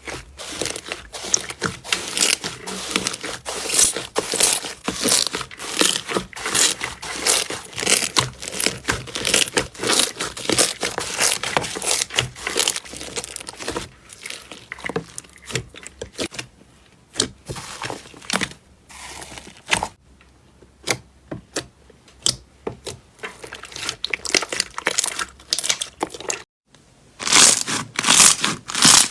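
Slime being squeezed and worked by hand, giving dense crackling and popping clicks. A brief silent gap comes about three quarters through, and louder crackling follows it.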